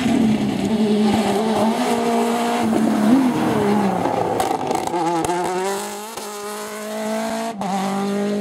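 Mini WRC rally car's turbocharged four-cylinder engine running at high revs as the car passes at speed. The pitch drops and wavers a few seconds in, then the sound cuts abruptly to another loud pass near the end.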